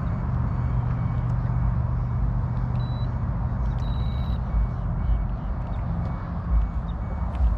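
A steady low engine hum and rumble, as of a motor vehicle running nearby. There is a short high beep about three seconds in and a brief run of high beeps about a second later.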